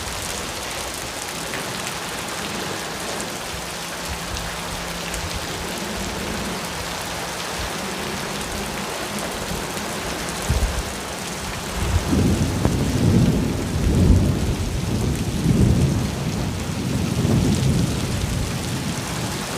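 Steady rain falling, with thunder rumbling in low rolling surges through the second half after a short low thump a little past the middle.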